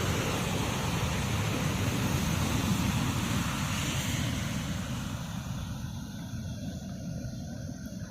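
Surf of a rough sea, a steady wash of breaking waves with wind buffeting the microphone, easing off over the second half.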